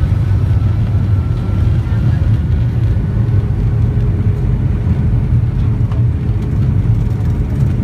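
Boeing 757-300 jet engines and airframe heard from inside the passenger cabin as the airliner rolls along the runway: a steady low rumble with a faint, even engine whine above it.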